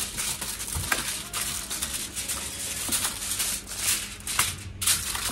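Aluminium foil being handled and crinkled while lining a baking pan: continuous irregular crinkling with a few sharper crackles.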